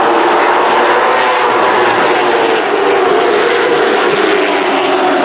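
A pack of Late Model stock cars racing by together, several V8 engines running loud at once with overlapping engine notes that waver up and down in pitch.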